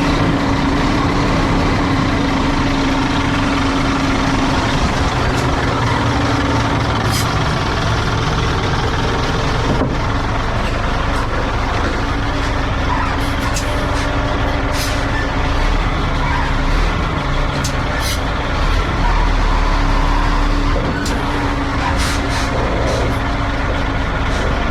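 A motor running steadily with a low hum, with a few short clicks over it.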